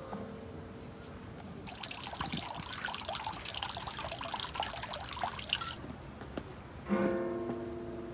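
Water splashing and trickling from a bamboo spout into a stone hand-washing basin, from about two seconds in until just before six seconds. A few soft musical notes sound before it, and a single ringing note comes about a second before the end and slowly fades.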